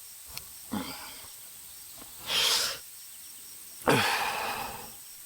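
Three breathy noises from a person. There is a short one, then a sharper hissing one, then a longer one that starts strong and trails off.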